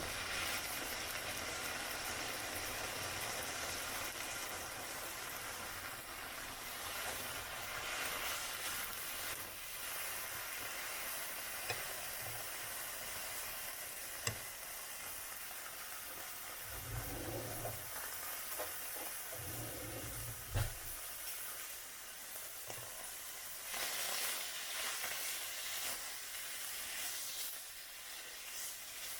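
Kobe beef steak sizzling steadily in a dry hot pan, frying in its own melting fat with no oil or butter added. Two short low thuds come a little past halfway.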